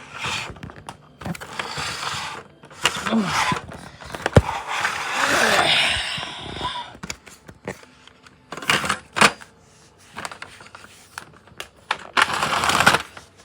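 Power cord of a Hoover WindTunnel Rewind vacuum cleaner being reeled in by its automatic cord rewind, with bursts of scraping and clattering as the cord whips against the body and several sharp clicks.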